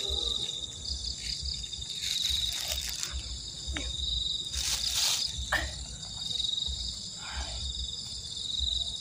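Insect chorus trilling steadily in a high, pulsing drone, typical of crickets in grass at a pond's edge.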